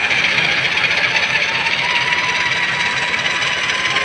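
Heavy electric drill running a hone inside a cylinder liner of a Massey Ferguson 385 engine block to polish the liner: a steady motor whine with a fast, even low pulse, its pitch rising slightly near the end.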